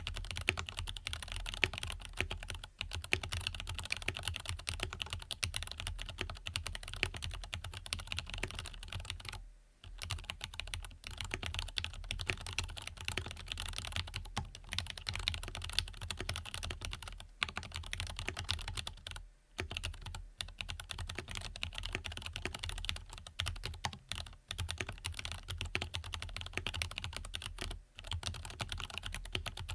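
Fast continuous typing on a mechanical keyboard, an Angry Miao Cyberboard with Krytox-lubed Zealios tactile switches and lubed Everglide V2 stabilizers: a dense stream of key clicks with a few brief pauses.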